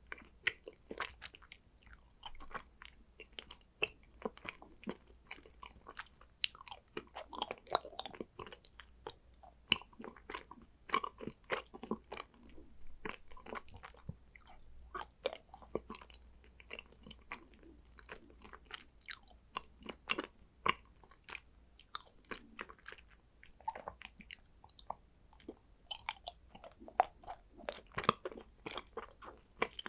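Close-miked chewing and biting of condensed-milk chocolate: a steady run of irregular sharp crunches, clicks and mouth smacks.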